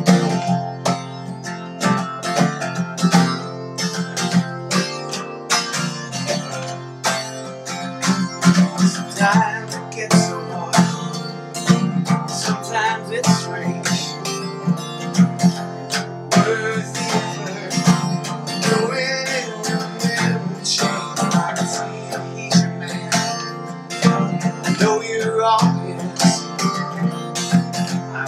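Acoustic guitar strummed in a steady rhythm, ringing chords with a strong low end.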